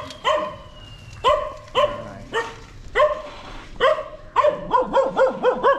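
Dog barking repeatedly, the barks spaced about half a second to a second apart, then coming quickly, several a second, near the end.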